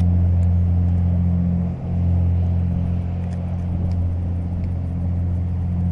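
An engine running steadily with a low, droning hum that dips briefly about two seconds in.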